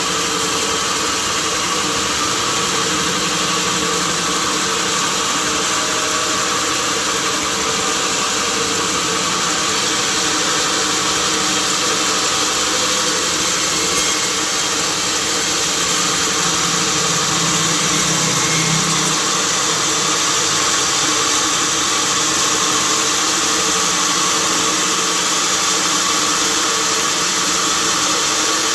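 Sawmill machinery running steadily: a constant engine-like drone with a hiss over it, no breaks or separate impacts.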